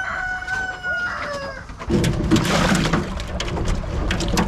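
A rooster crows once, a long held call that drops away at its end. From about two seconds in, water splashes and sloshes in a galvanized metal washtub as a dog is held and dipped in it.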